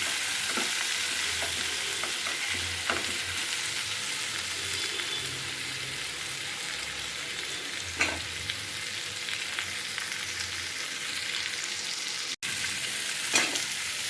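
Vegetable pieces sizzling steadily as they fry in a little oil in a pan, stirred now and then, with a few short scrapes of the stirring spoon against the pan.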